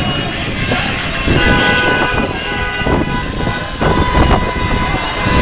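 Several car horns held down together in celebratory honking, their steady tones coming in about a second in, over the noise of a packed street crowd.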